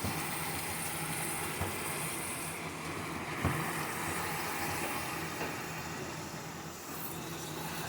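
Minced meat and fried onions sizzling steadily in hot ghee in a pan, with a few light knocks of a spoon against the pan, the sharpest about three and a half seconds in.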